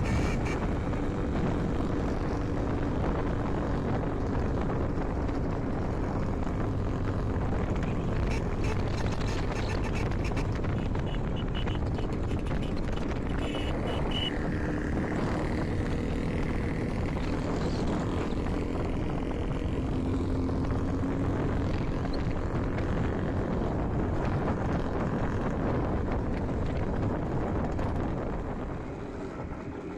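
IZh Jupiter 5 motorcycle's two-stroke twin-cylinder engine running steadily under way, with a little wavering in pitch; the owner complains that this engine rings and knocks. It eases off slightly near the end.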